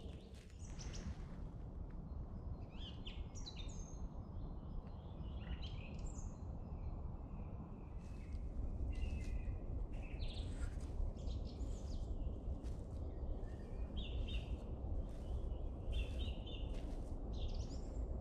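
Small birds chirping and calling now and then over a steady low background noise, which gets a little louder about halfway through.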